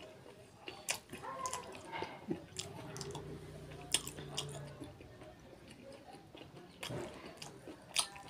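Close-miked chewing of curried duck meat: wet smacks and clicks of the mouth, scattered and irregular, with a low hummed note lasting about two seconds in the middle.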